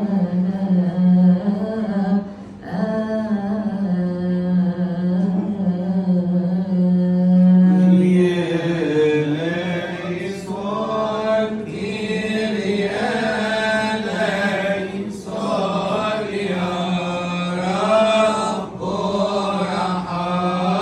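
A man's voice singing Coptic liturgical chant, drawing out long, ornamented melismatic phrases on held notes.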